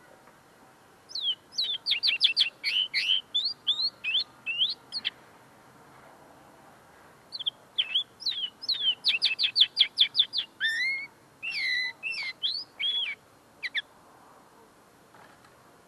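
Common linnet singing: two phrases of rapid high notes and short sweeping trills, the first from about a second in to five seconds, the second from about seven seconds to nearly fourteen. Its keeper says the bird is still finishing clearing its notes, so the song is not yet fully formed.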